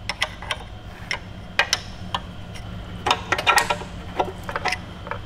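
Irregular sharp metal clicks and taps of a screwdriver prying at the RTV-sealed rear timing cover of an Audi R8 4.2 L V8 engine, the cover stuck on its dowels.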